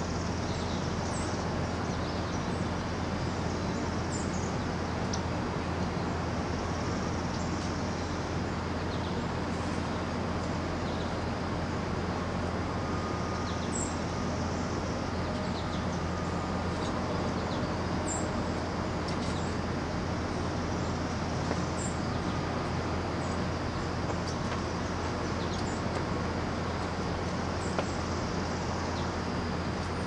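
A steady low background rumble, with short, high bird chirps scattered every few seconds.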